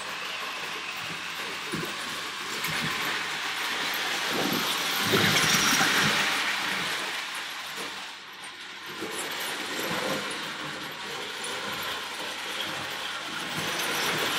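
Lionel O gauge electric toy trains running on three-rail tinplate track: a continuous whirring and clattering of motors and wheels, loudest around the middle with a brief dip a couple of seconds later.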